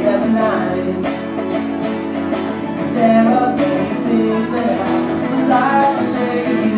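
A live acoustic-and-electric guitar duet: a strummed steel-string acoustic guitar and an electric guitar playing chords together, with a man singing lead in phrases over them.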